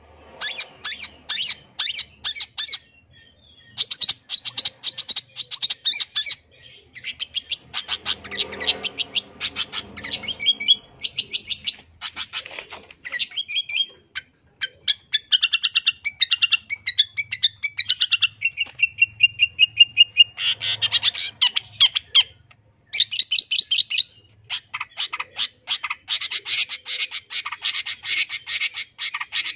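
Long-tailed shrike (cendet) singing a long, varied song of rapid chattering, harsh notes and mimicked phrases of other birds, with a short pause now and then and one held whistle a little past the middle.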